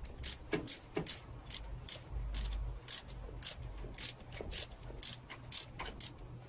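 Ratchet wrench with a 14 mm socket clicking steadily as it turns the alternator bolt, about three to four sharp clicks a second.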